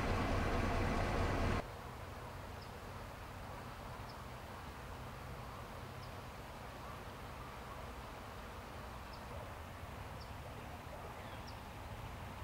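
A vehicle engine idling with a steady hum, cut off suddenly about a second and a half in. Then a quiet outdoor hush with about six faint, short, high bird chirps spread through it.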